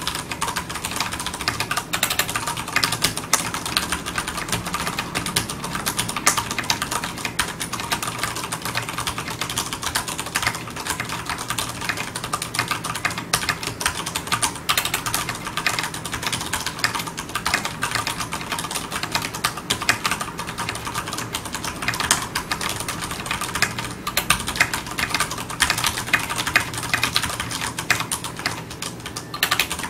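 Continuous fast typing on a Ducky Shine 3 tenkeyless mechanical keyboard with Cherry MX Brown switches and PBT double-shot keycaps: a dense stream of key clacks with no pauses.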